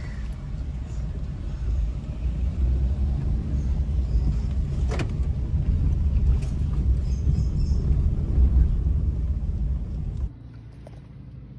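Car cabin noise while driving: a steady low rumble of engine and road, growing a little louder, with a single sharp knock about five seconds in. It cuts off suddenly near the end.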